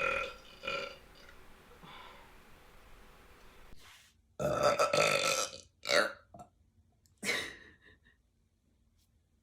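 A woman burping in a series: two short burps at the start, then a long drawn-out burp about four and a half seconds in, followed by a few shorter ones.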